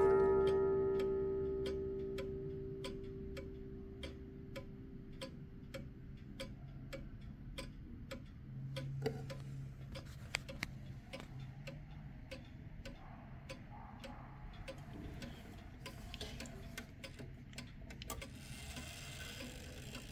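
The Kienzle pendulum wall clock's coiled wire gong rings out from a strike and fades over the first few seconds, while the clock ticks steadily.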